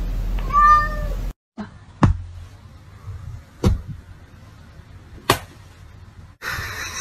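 A cat meowing once, a drawn-out meow. Then three sharp slaps about a second and a half apart, hands coming down onto a stack of hands on a couch cushion.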